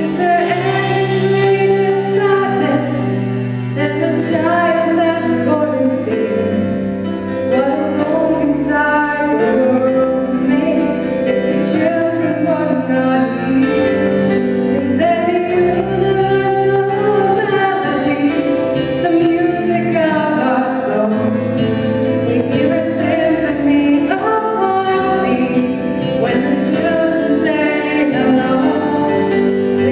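Background music: a song with a sung melody over sustained accompaniment.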